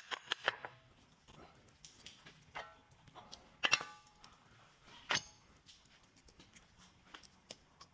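A few quick clicks at the start, then scattered metallic clinks and knocks of hand tools and suspension parts, some ringing briefly; the loudest come about three and a half and five seconds in.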